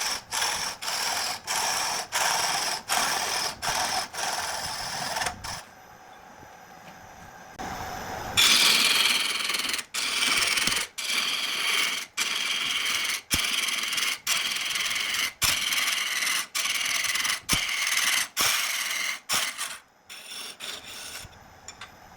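Wood being turned on an old wooden lathe: a cutting tool scraping the spinning wood in short repeated strokes, about two a second, each broken off by a brief gap. The cutting goes quieter about five and a half seconds in and comes back loud about eight seconds in.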